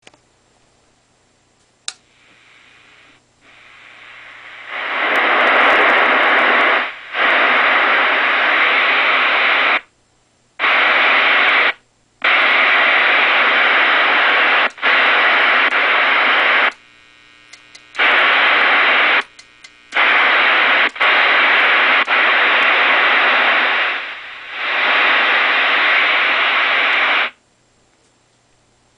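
Static hiss from the loudspeaker of a Johnson Messenger Two vacuum-tube CB radio, switched abruptly off and back on several times as the squelch control is worked, the squelch muting and opening the receiver noise. A click comes about two seconds in, and a low steady hum sits under it all.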